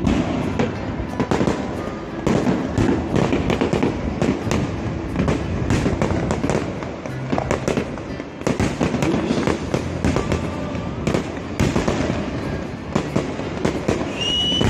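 Fireworks and firecrackers going off continuously: a dense, unbroken run of overlapping bangs and crackles, some louder pops standing out.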